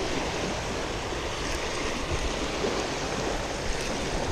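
Small waves washing in over a sandy beach shoreline in shallow water, a steady rushing wash.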